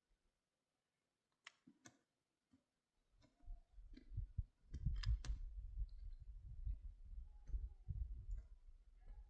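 Scattered sharp clicks and knocks: a few isolated ones at first, then more frequent ones over a low rumble from about three seconds in.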